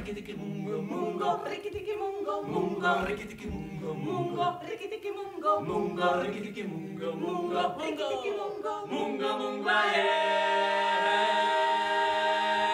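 A group of voices singing a cappella in harmony, settling about ten seconds in on one long held chord.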